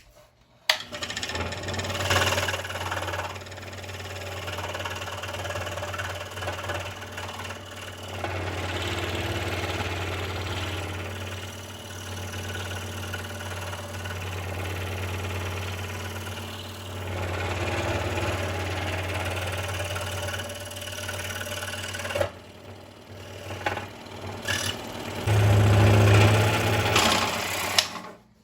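Scroll saw running with a number 7 precision ground tooth blade, cutting slowly through a thick 2-inch wooden block, which the woodworker finds hard going with this blade. The saw starts suddenly, eases off briefly about two-thirds of the way through, runs loudest near the end and then stops.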